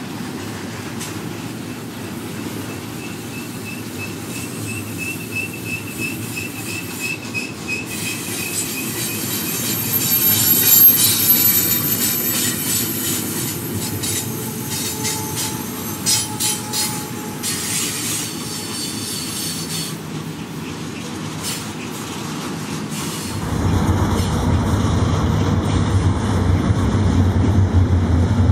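Double-stack intermodal freight train of loaded container well cars rolling past, a steady rumble with wheels clicking over the rails and a high wheel squeal about ten seconds in. Near the end the rumble turns abruptly louder and deeper.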